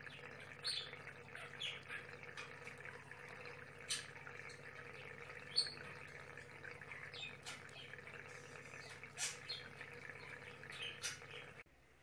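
Pet budgerigar chirping in short, scattered calls over a steady low hum, with a few louder chirps. The sound cuts off suddenly shortly before the end.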